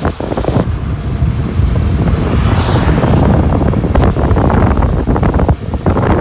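Heavy wind buffeting the microphone: a loud, rough, gusting rumble.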